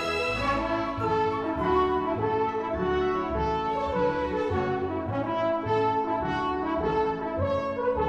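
Orchestra playing a lively Scottish-style dance tune, with the brass, French horns above all, carrying the melody at a steady dance pace.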